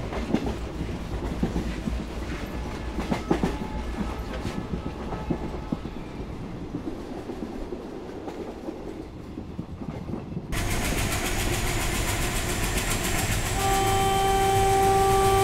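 A train running, with the rattle and clicks of wheels over the rails heard from inside a passenger coach. About ten seconds in it changes to a louder, steadier rumble of the moving train, and near the end the locomotive's horn sounds one long steady blast.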